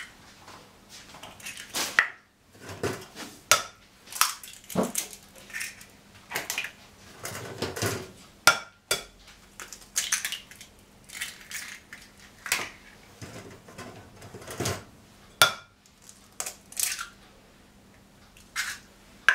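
Hen's eggs being cracked one after another and their shells broken open over a glass bowl: a series of sharp, irregular cracks and clicks, with small clinks against the glass.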